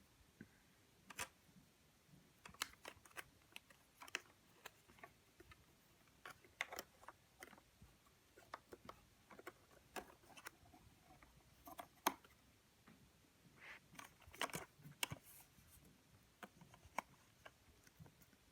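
Faint, scattered clicks and small scrapes of a DDR2 RAM module being handled and worked into an iMac's memory slot.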